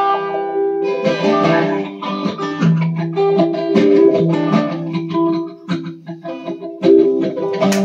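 Acoustic guitar playing a song's intro, a series of chords that ring out between strokes.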